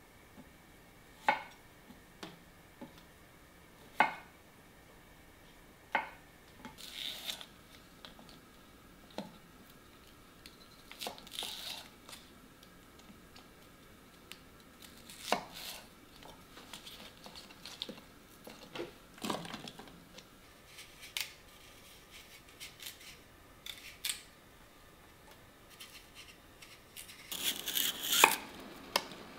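Kitchen knife cutting down onto a cutting board in separate, unhurried strokes, one every second or few seconds, with a few short rustles between. Near the end comes a quicker clatter of handling on the board.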